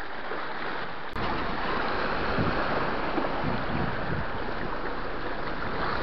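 Sea surf washing over shoreline rocks: a steady rush of water, with wind on the microphone. A sharp click comes about a second in, and after it the rush is louder.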